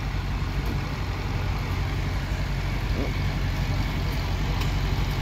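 John Deere tractor engine running steadily under load as it pulls the sled down the track, a steady low rumble that grows a little louder near the end.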